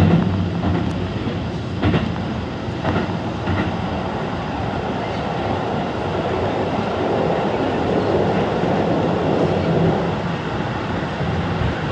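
Tokyu Toyoko Line electric commuter train running along the track, a steady rumble and rush with a low hum and a few sharp clacks about two and three seconds in.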